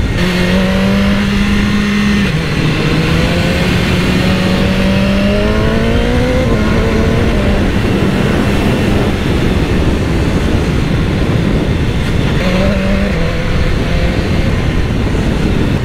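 BMW S1000R inline-four motorcycle engine under way on a ride, with wind rushing over the camera's microphone. The engine note dips a couple of seconds in, climbs for a few seconds, drops back and then holds fairly steady, with a brief rise near the end.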